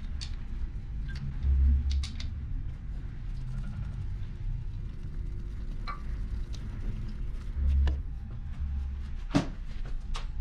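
Light clicks and taps of metal parts and tools as a knock sensor is fitted to the back of a Mitsubishi 4G63 engine block, with a few dull low thumps of handling and one sharper metallic click near the end.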